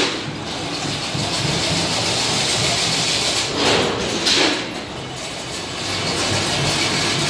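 Automatic chain link fence weaving machine running with a steady mechanical hum. Around four seconds in there is a louder, hissing stretch that lasts about a second, part of a pattern that repeats every four to five seconds.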